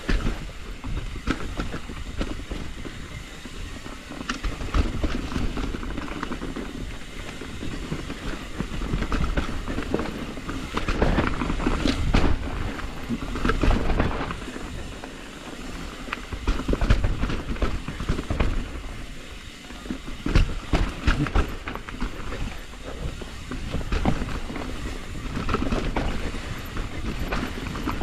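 Transition TransAM hardtail mountain bike riding down a rough dirt trail: tyres rumbling over the ground and the bike rattling, with irregular knocks and clatter from bumps.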